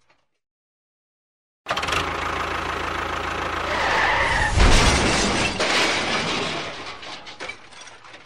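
An engine running, cutting in suddenly out of silence about two seconds in, growing louder toward the middle and then fading away near the end.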